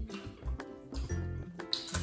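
Background music with a steady beat, about two low beats a second under held notes.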